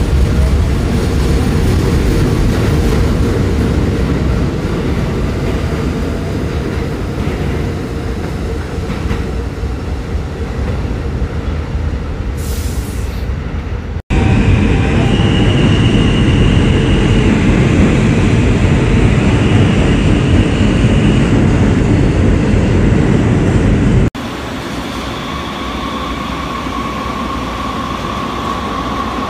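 Subway trains in stations, in three abrupt cuts. First a New York City subway train pulls out along the platform with a steady rumble. Then comes a louder run of train rumble with high-pitched wheel squeals. Last, a light-rail train glides past an underground platform, quieter, with a steady whine.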